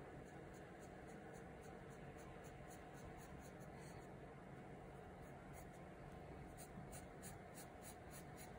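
Faint scratching of a graphite pencil on sketchbook paper, drawing short straight lines one after another at about three strokes a second.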